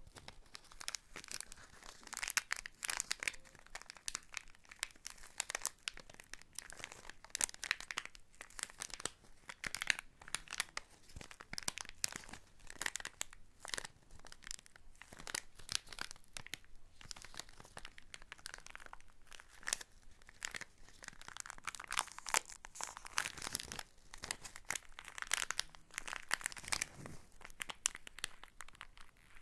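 Hands crumpling and rustling crinkly material close to the microphone: continuous fine crackling.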